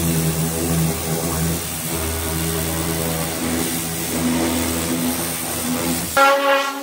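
Pressure washer spraying: the machine's motor and pump hum steadily under the hiss of the high-pressure jet on the stripped car body. Near the end this cuts off suddenly and music comes in.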